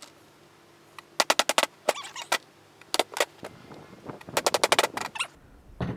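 Rapid bursts of sharp metallic taps or clicks, four runs of several quick strokes each, about ten strokes a second.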